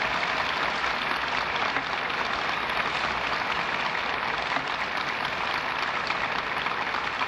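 Large audience applauding: dense, steady clapping that holds at an even level throughout.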